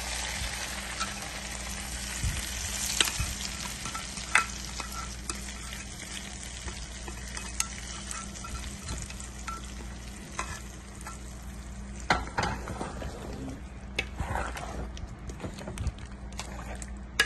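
Hot coconut-oil tempering of mustard seeds, onion and curry leaves sizzling as it goes into a pot of chicken curry, strongest over the first few seconds and then easing. A ladle stirs it through the curry, knocking now and then against the pot.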